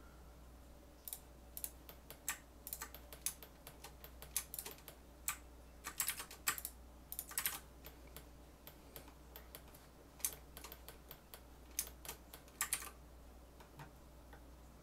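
Computer keyboard clicking in irregular clusters of keypresses from about a second in until near the end, over a steady low hum from a fan.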